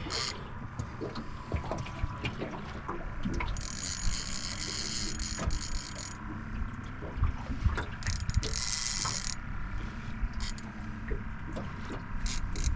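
Fishing reel at work, its gears and ratchet clicking and ticking, with two stretches of higher whirring a few seconds in and again near the end of the second half, as line is wound and a fish takes line. A low, steady rumble from the boat and water runs underneath.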